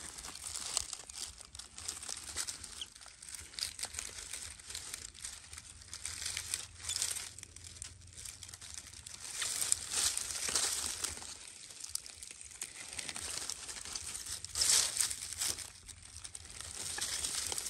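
Dry leaf litter rustling and crackling in irregular bursts as the monkeys and hands move on it, loudest in a few flurries.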